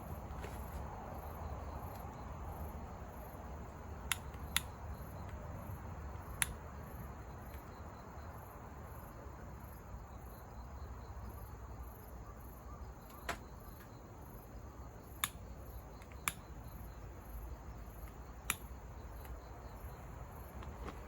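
A cricket-like insect chirping, a high pulse repeating at a steady rhythm, over a low steady rumble. A few sharp clicks or pops stand out, the loudest about six seconds in.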